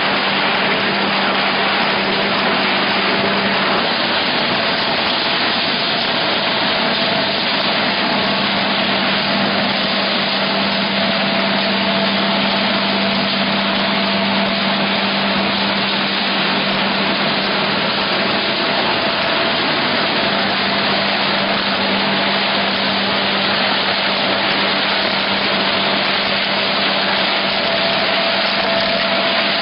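Rotary die-cutting machine with stripping machine running continuously: a loud, even hiss with a steady hum beneath it.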